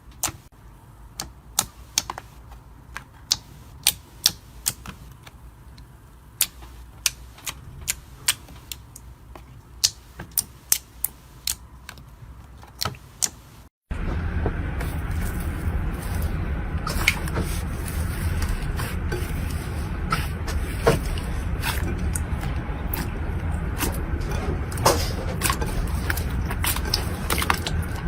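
Slime being worked by hand, giving sharp clicks and pops. About halfway in the sound jumps louder, with a steady low noise under the pops.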